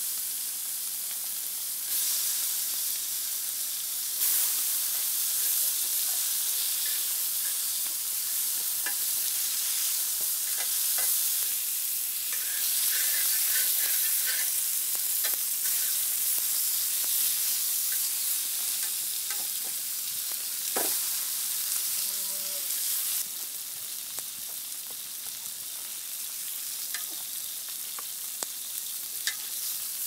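Meat sizzling steadily as it cooks over a fire, with scattered sharp clicks; the sizzle eases off a little about three-quarters of the way through.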